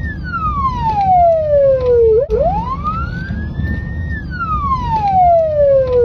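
Kazakhstan police car siren sounding a slow wail: a tone that falls from high to low over about two seconds, climbs back up over about two seconds, then falls again, over a low rumble.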